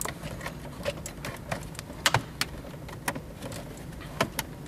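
Plastic interior trim of a 2004 Toyota Corolla's center console being pulled away by hand, giving irregular sharp clicks and taps.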